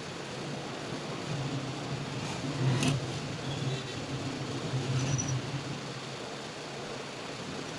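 Steady background hum and hiss, with a sharp click a little under three seconds in and a fainter click about five seconds in.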